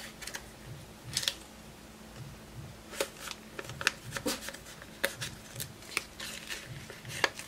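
Paper money and paper envelopes being handled: a string of irregular rustles and crinkles as dollar bills are folded and slid into an envelope.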